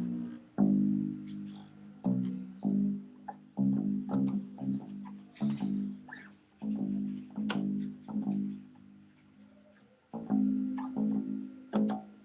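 Acoustic guitar (violão) and acoustic bass guitar playing plucked chords and notes in loose, halting phrases, each ringing and dying away, with a short pause about ten seconds in.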